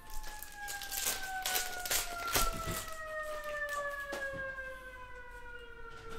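A siren wailing, its pitch falling slowly and steadily. Over it come short crinkles and clicks from a foil card pack being torn open and the cards being handled.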